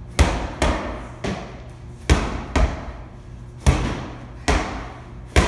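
Medicine balls slammed down onto rubber gym flooring: a string of about eight heavy thuds at uneven intervals, from several people slamming at their own pace.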